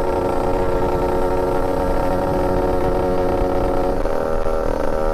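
Yamaha 125Z's two-stroke 125 cc single-cylinder engine running at steady revs under way, over a low rumble of wind and road noise, with a slight change in its note about four seconds in.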